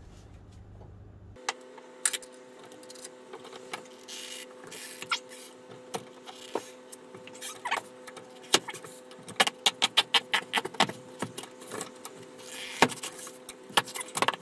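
Metal clicks and clinks from handling a motorcycle wheel on a manual tyre-changer stand, with a quick run of clicks about nine to eleven seconds in, over a steady hum that starts abruptly about a second and a half in.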